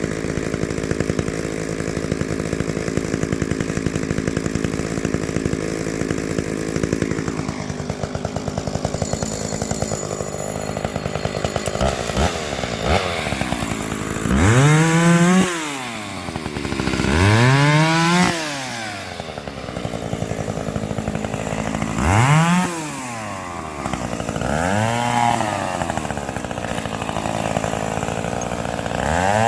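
Stihl 031AV two-stroke chainsaw idling steadily, then revved up and let back down about five times in the second half, each rev rising and falling in pitch.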